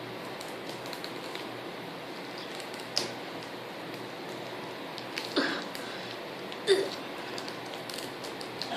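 Handling noises of a K-pop CD album and its packaging being opened: a few light clicks and taps, the loudest about three, five and a half and seven seconds in, over a steady background hiss.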